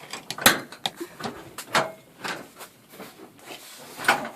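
Garage door top section being worked into place: a series of irregular knocks and clanks as it is pushed and shifted, the loudest about half a second in.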